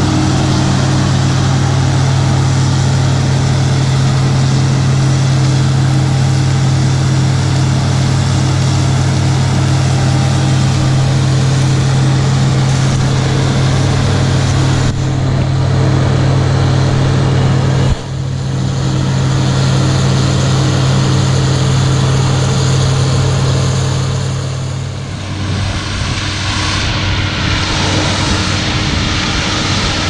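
Combine harvester running while harvesting corn: a loud, steady engine drone with a deep hum. It breaks off abruptly twice around the middle, and near the end the deep hum drops away, leaving a thinner machine noise.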